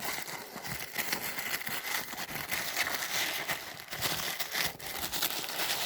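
Packing material rustling and crinkling as a shipping box is opened and its contents unwrapped by hand: a dense run of small crackles and scrapes with no pauses.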